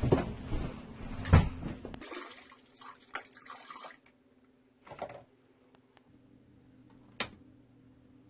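Water running and splashing in a small room. It stops abruptly about two seconds in, and a quieter stretch follows. A dull thump comes about five seconds in and a sharp click about seven seconds in.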